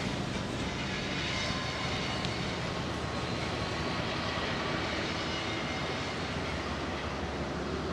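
Steady mechanical running noise with a faint high whine over it and no breaks.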